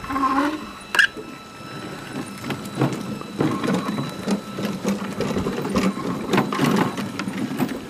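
Electric-motor-driven ride-on backyard train running slowly, its drive whirring steadily while the wheels click over rail joints and the points of switch tracks.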